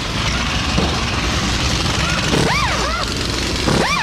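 Hand-held pneumatic tool on an air hose whining up to speed and back down in short trigger bursts: a quick cluster about two and a half seconds in, and another near the end. Under it runs a steady background din.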